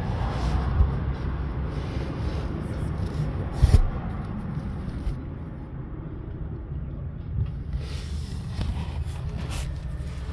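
Low steady rumble, with a single sharp knock a little under four seconds in.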